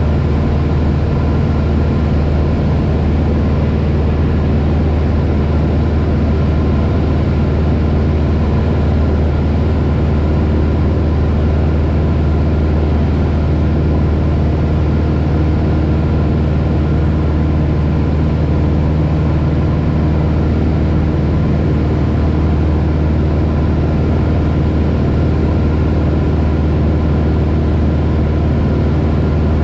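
Single-engine light plane's engine and propeller droning steadily inside the cabin in flight, a low, even hum that does not change.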